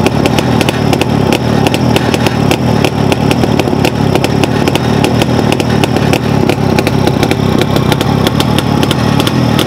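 Jawa 360 motorcycle's 350 cc two-stroke twin engine idling steadily, with sharp ticks several times a second.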